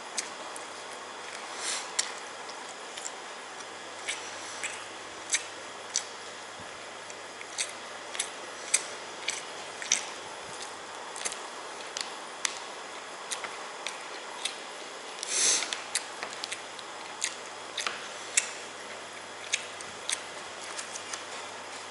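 A person eating instant noodles: scattered, irregular clicks and smacks of chewing and utensils, with one longer, louder eating sound about two-thirds of the way through.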